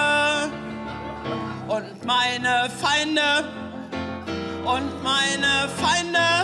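A woman singing an improvised operatic aria with a wavering vibrato, accompanied by piano chords on a stage keyboard. A held note ends about half a second in, followed by two more sung phrases.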